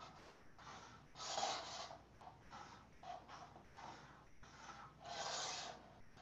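Faint pencil strokes scratching on drawing paper, a string of short irregular strokes with two longer, louder ones, about a second and a half in and again near the end, as lines are drawn in.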